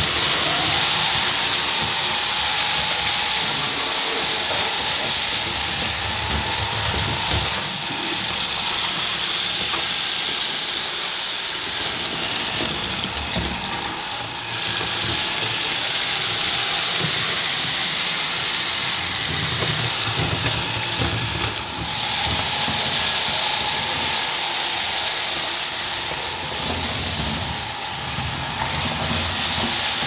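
Bosch Unlimited Serie 6 cordless stick vacuum running on its low suction setting: a steady motor whine and rushing airflow hiss. Its motorised brush head is pushed back and forth over ceramic floor tiles, picking up scattered seeds and grit.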